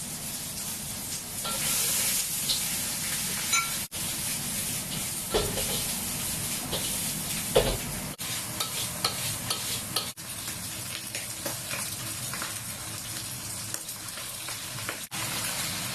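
Food sizzling as it is stir-fried, a steady frying hiss with a few short knocks. The sound breaks off for an instant four times.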